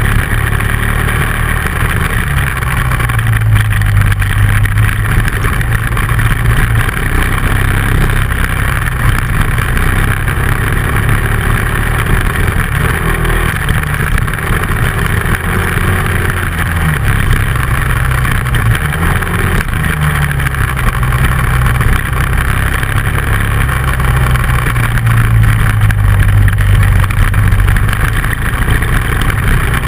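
Dual-sport motorcycle engine running while riding a dirt road. Its pitch rises and falls with the throttle every few seconds, over a steady rush of noise.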